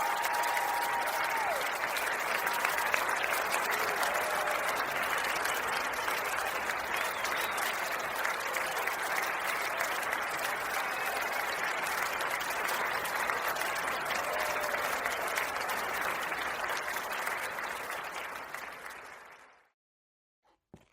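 Large crowd applauding, fading out near the end.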